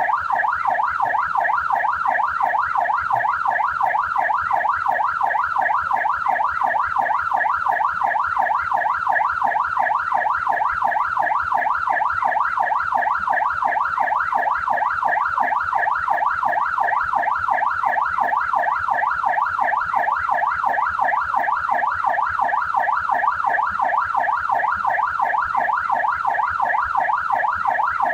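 Australian police car siren sounding steadily in a fast yelp, its pitch sweeping up and down about four times a second.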